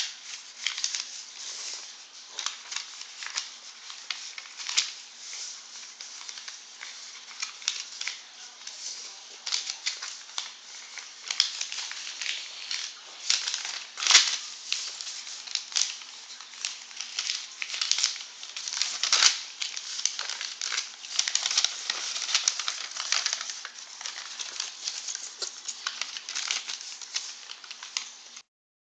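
A sheet of paper rustling and crinkling as it is folded by hand, in many irregular crackles. A couple of louder crackles come about halfway and two thirds of the way through. The sound cuts out for an instant just before the end.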